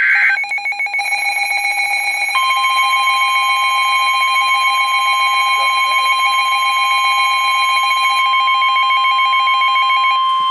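NOAA Weather Radio warning alarm: a single steady tone of about 1 kHz begins about two seconds in and holds to the end. Under and around it runs a rapidly pulsing electronic alarm beep, and the tail of an EAS data burst is heard at the very start.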